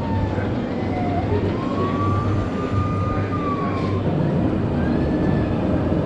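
An emergency siren wailing in slow glides, falling, then rising and holding, then falling again, over a steady low background rumble. It is the disaster-theme siren effect around the coaster plaza.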